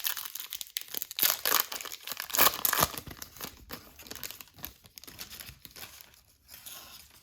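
Crinkling and tearing of a trading-card pack wrapper being ripped open and handled, loudest in the first three seconds, then fading to softer rustling.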